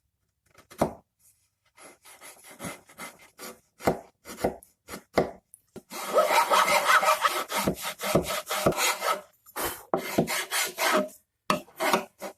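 Hand file scraping back and forth across the edge of an MDF panel, trimming it to fit flush. Uneven strokes at first, then a fast steady run of strokes lasting about three seconds, then slower single strokes.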